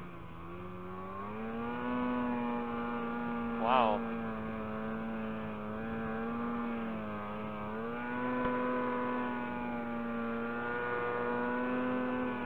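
Polaris SKS 146 snowmobile's two-stroke engine running steadily while the sled crosses deep powder. Its pitch steps up a little about one and a half seconds in and again about eight seconds in. Just before four seconds there is a short, louder wavering sound.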